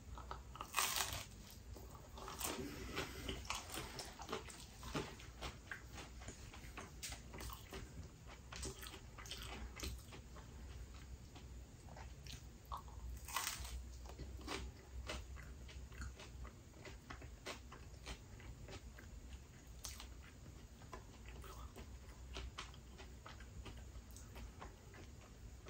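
Close-up sounds of a person eating spinach pizza: a bite about a second in, then steady chewing with small crunches and clicks of the crust, louder again around halfway through.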